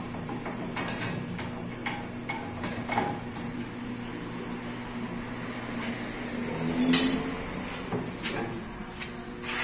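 Scattered metal knocks and clanks of hand tools worked against a metal workbench, a few seconds apart, the loudest about seven seconds in. A steady low hum runs underneath.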